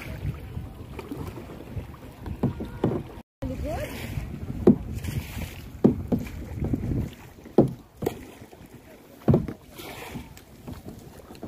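Kayak paddling on open water, with wind buffeting the microphone as a low rumble and the paddle hitting the water in separate strokes about every one and a half to two seconds in the second half; the sound cuts out completely for a moment a little after three seconds in.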